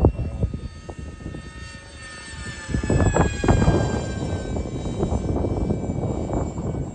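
RC foam flying wing's motor and propeller whining overhead. The pitch drops as it passes, and it is loudest about halfway through, over an uneven low rumble.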